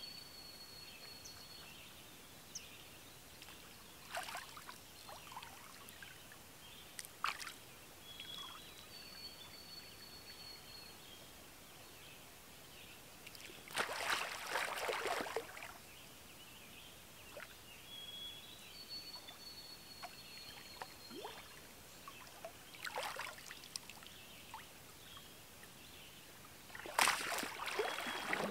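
Water splashing as a swimmer ducks under and comes up in a calm lake: small splashes, with the two biggest about halfway through and near the end. A high, clear whistled bird song repeats about every ten seconds.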